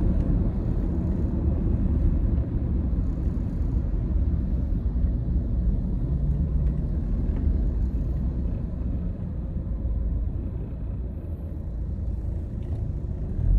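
Steady road and engine rumble heard from inside a moving 2010 Toyota Corolla's cabin, easing a little in level towards the end.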